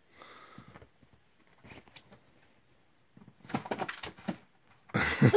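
Kittens' paws scampering and hopping on a cloth bedspread: soft, scattered pattering and rustling, busiest from about three and a half to four and a half seconds in.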